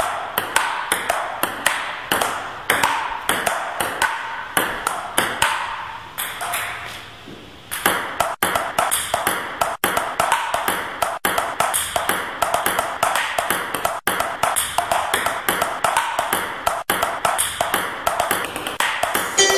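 A rapid, overlapping series of sharp pinging clicks, several a second, each ringing briefly. They thin out and grow fainter about six seconds in, then come back dense and steady from about eight seconds.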